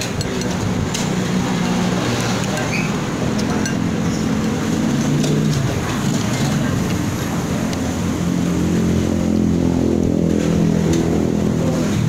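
Motor vehicle engine running close by over steady road traffic noise, its pitch wandering up and down and growing stronger in the second half.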